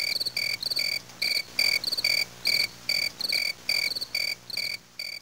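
Crickets chirping in a steady, even run of short chirps, about three a second, some broken into quick trills: the comedy 'crickets' effect of awkward silence after a joke.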